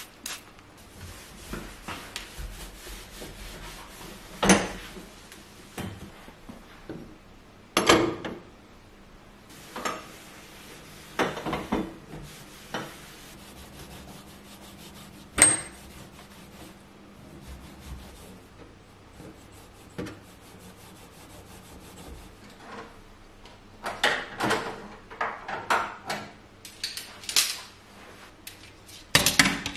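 Scattered clinks and knocks of hard kitchen items being handled and set down, with some rubbing, while a gas stovetop is cleaned. Three loud single knocks stand out, and a quick run of clatter comes near the end.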